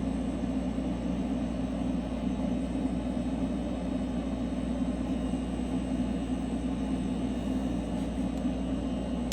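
A steady low mechanical drone, like a small motor or compressor running, unchanging throughout.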